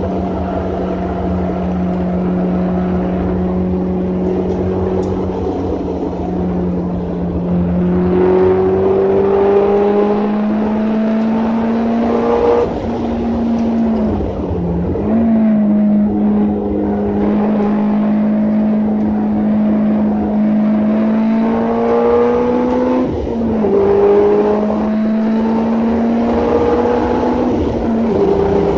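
Subaru Impreza flat-four engine heard from inside the cabin at speed on a race track, over steady road and wind noise. The revs climb under acceleration and fall back at gear changes, several times.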